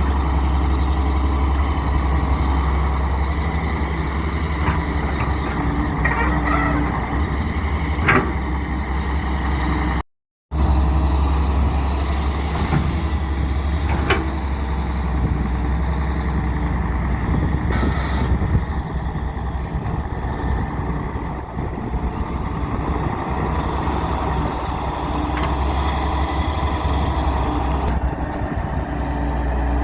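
Diesel engine of a Daewoo 170W-III wheeled excavator running steadily under work, with a few sharp clanks spaced several seconds apart and a brief drop to silence about ten seconds in.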